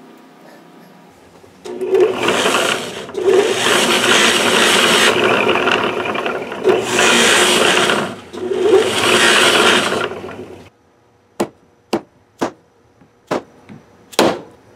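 A guitar fret held against a spinning buffing wheel: a loud, even grinding rush in several passes with short breaks, as the fret's sharp ends are buffed smooth. After it stops, about six sharp taps follow as the fret is pressed back into its slot with a wooden dowel.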